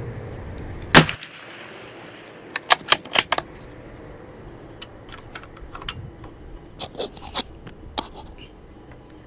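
A single sharp .22 LR rifle shot from a Savage FV bolt-action target rifle about a second in, followed by a quick run of sharp mechanical clicks and a few fainter clicks later.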